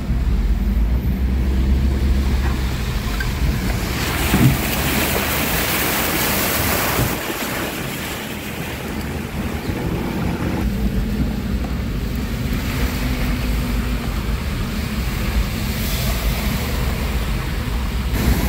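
Traffic on rain-flooded streets with wind buffeting the microphone: a steady low rumble under a rushing hiss of water, which swells for a few seconds about a quarter of the way in.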